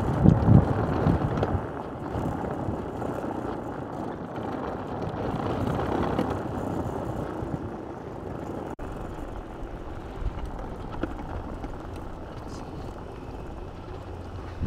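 Unpowered mountain cart's wheels rolling and rattling over a path of concrete grid pavers, with louder bumps in the first second or so, then a lower, steady rolling noise as the cart slows.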